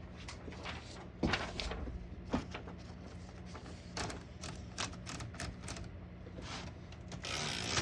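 Antique Remington Model 4 portable typewriter being handled: scattered mechanical clicks and knocks, with a short rustling sweep near the end.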